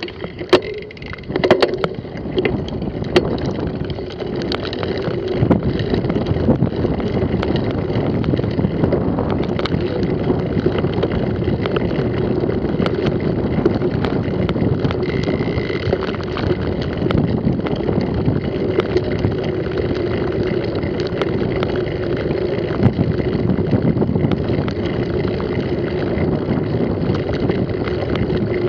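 Mountain bike riding fast over a rough grassy dirt track: a steady rush of wind on the microphone and tyre rumble, with a few sharp knocks and rattles from the bike in the first couple of seconds.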